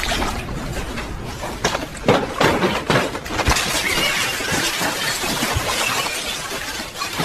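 A continuous crashing and clattering, with glass and crockery breaking and knocking together.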